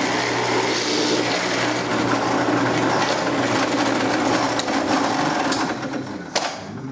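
Homemade automatic drilling machine running through a cycle: a steady mechanical whirr of the drill working, driven by a garage door opener motor through a chain and cam. The noise eases off near the end, with one sharp click about six seconds in.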